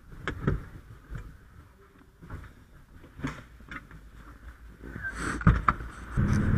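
Clothing rustle and scattered knocks and clunks as a firefighter pulls on a vest and climbs into a fire engine's cab, with one heavy thump about five and a half seconds in. Near the end the truck's engine starts up and runs steadily.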